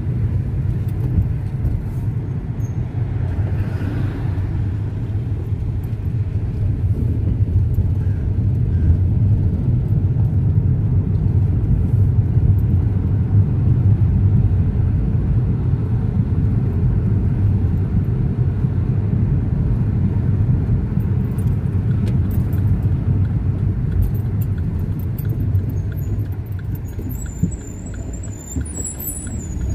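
Steady low rumble of a car's engine and tyres on the road, heard from inside the cabin while driving. A brief high squeal comes near the end.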